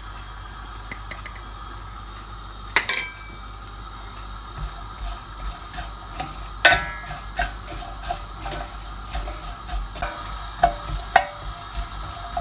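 Wooden spoon stirring chopped raw mango and sugar in a stainless steel pan, knocking and scraping against the metal so that it rings. There is one sharp clink about three seconds in. From about four and a half seconds the knocks come one or two a second.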